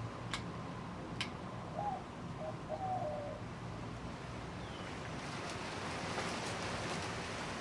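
A 1980s TAT Deluxe ceiling fan's motor running with a steady low hum. Two sharp clicks come in the first second or so, a few short whistle-like tones follow about two seconds in, and a hiss of moving air grows from about five seconds in.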